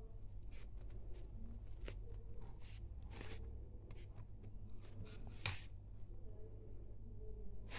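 Soft rustling and brushing as a hand strokes and handles a cat on a disposable absorbent pad, with a few louder rustles, the loudest about five and a half seconds in, over a low steady hum.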